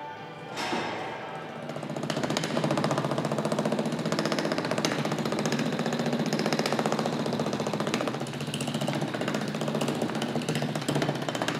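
Handheld breaker hammer with a tamping foot hammering rapidly and steadily as it rams damp earth into a small steel test mould; it builds up over the first two seconds, then runs at full rate.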